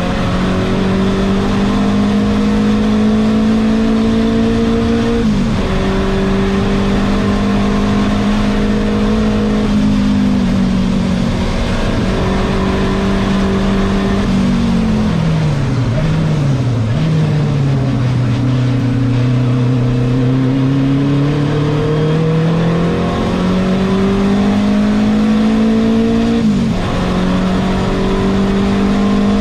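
Renault 5 Turbo 2's mid-mounted turbocharged four-cylinder engine at racing revs, heard from inside the cabin. The revs dip sharply a few times and fall in steps through the middle to a low note, then climb steadily again.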